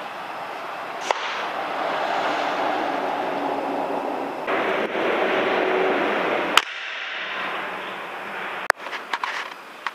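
PCP air rifle shots: three sharp single cracks, about a second in, a little past halfway, and near the end, the last followed by a few lighter clicks. Between the shots there is a steady rushing background noise that cuts off abruptly at the second shot.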